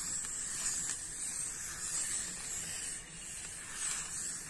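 Soft graphite 10B pencil scratching across newsprint paper as it draws long, looping lines. The hiss swells and fades with each stroke.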